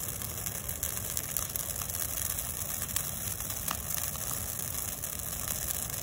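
Large bonfire of fresh pine brush burning: a steady low rush of noise with a few faint crackles scattered through it.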